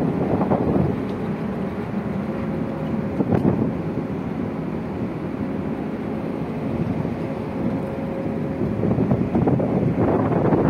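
Wind blowing across the microphone on the open deck of a cargo ship under way: a steady rushing noise that gusts louder at the start and again near the end, with a low steady hum of the ship beneath it.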